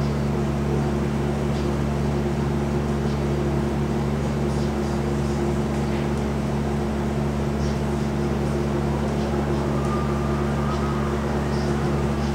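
Steady low hum made of several even tones, unchanging throughout, with a few faint ticks above it.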